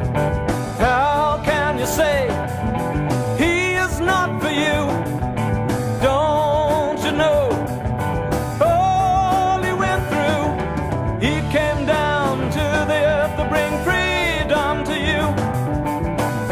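Gospel band music: a full band playing, with a lead melody line that bends and glides in pitch over a steady backing.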